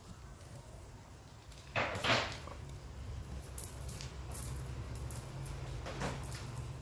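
A few scuffling knocks and thumps as a toy poodle plays with a towel and rod toy, two close together about two seconds in and a fainter one near the end, over a low steady hum.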